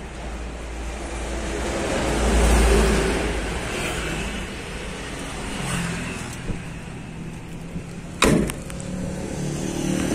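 Background motor-vehicle noise that swells and fades about two to three seconds in, as a vehicle passes, then a single sharp knock about eight seconds in.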